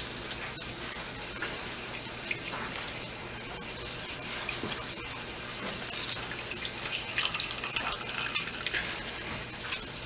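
Herb-infused oil trickling and dripping from a wrung-out cloth bag of herbs through a mesh strainer into a stainless steel bowl: a steady trickle with scattered drips.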